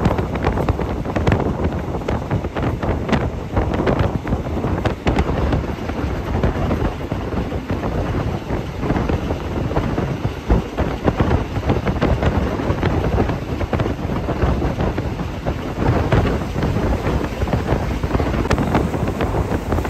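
Wind buffeting the microphone in a moving passenger train carriage, over the steady running rumble of the train, with frequent irregular knocks and rattles.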